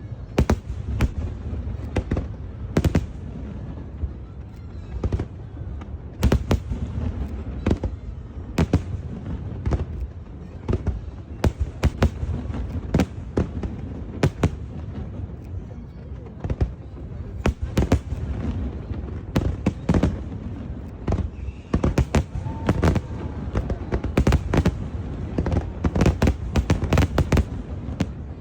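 Fireworks display: a rapid, irregular string of sharp bangs and crackles over a continuous low rumble of booms, growing denser near the end.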